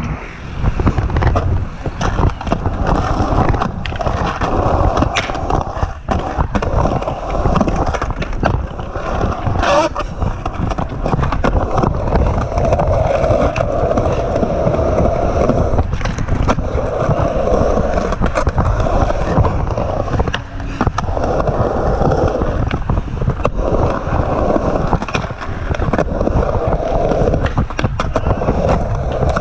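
Skateboard wheels rolling on a hard surface, with frequent clacks and knocks from the board.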